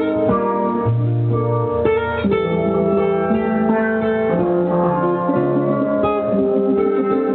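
Live instrumental music: a plucked guitar with bright, ringing melodic notes played over it, the notes changing every fraction of a second, with no singing.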